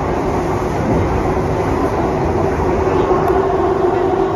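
Siemens C651 metro train running, heard from inside the passenger car: a steady rumble of wheels on rail, with a steady traction-motor hum that grows stronger about three seconds in.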